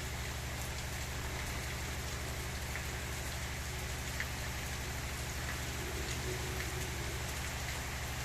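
Gentle, steady rain falling, with scattered drops ticking on a surface and a steady low rumble underneath.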